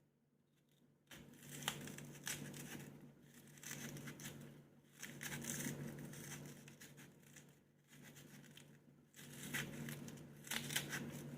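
Crinkling, rustling handling noise in irregular bursts, with a few sharp clicks, over a steady low hum.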